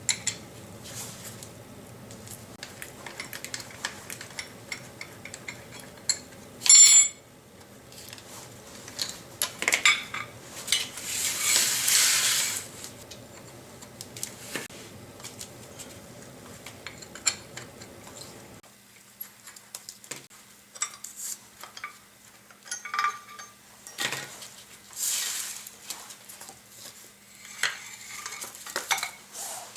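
Metal parts and hand tools clinking, clanking and scraping on the planer's drivetrain as the large gear and its makeshift strap are worked loose, with one sharp clank about seven seconds in and a longer scrape around twelve seconds. A low steady hum underneath stops abruptly about two-thirds of the way through.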